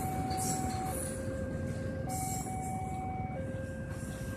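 Railway level-crossing warning alarm sounding a slow two-tone signal, a higher and a lower note alternating about every 1.2 seconds, over the rumble of the tail of a freight train of tank wagons passing.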